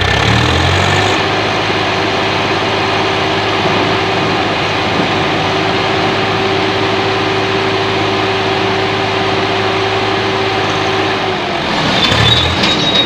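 Swaraj 744 XT tractor's three-cylinder diesel engine running steadily under load while pulling a fully loaded trolley, its note rising in the first second and shifting near the end. A brief high-pitched tone sounds near the end.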